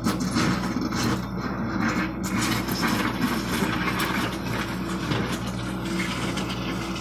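John Deere 60G compact excavator's diesel engine running steadily under hydraulic load as it digs, with stones scraping and clattering against the steel bucket, mostly in the first couple of seconds.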